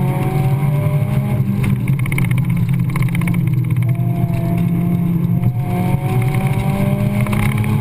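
1997 Mazda Miata's 1.8-litre four-cylinder engine pulling hard under acceleration, its pitch climbing, dropping back about a second and a half in, then climbing again over the last few seconds.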